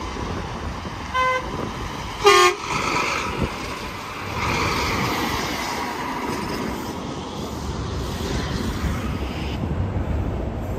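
Truck horn: a short toot about a second in, then a louder, longer blast about a second later. Then highway traffic passing.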